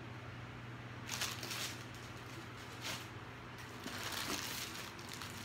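Rustling of clothing and plastic packaging being handled, in short bursts about a second in, near three seconds and again around four seconds.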